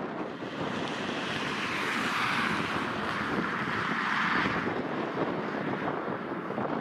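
Jet airliner engines running at taxi power: a steady jet hiss that swells about two seconds in and eases off again after about four and a half seconds.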